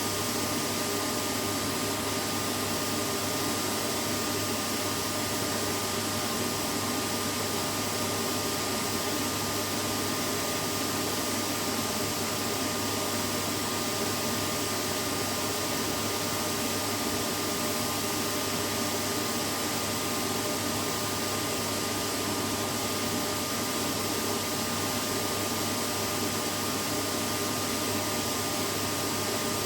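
Vacuum cleaner running steadily, an even rushing noise with a constant motor whine, used as white noise to lull a baby to sleep.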